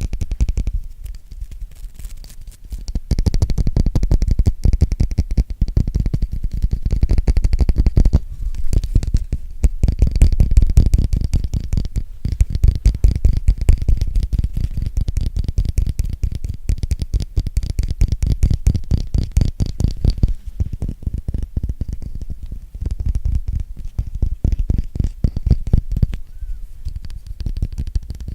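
Fast, continuous tapping close to the microphone: many soft taps a second, heavy in the low end and muffled-sounding, with a quieter stretch near the start.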